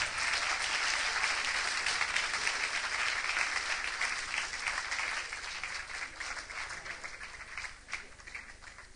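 Audience applauding, the clapping thinning out over the second half and ending in a few scattered last claps.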